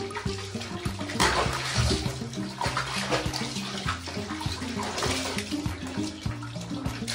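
Water splashing and churning in a plastic basin as a thin stream of tap water pours in and a hand sloshes the water, with several louder splashes, over background music.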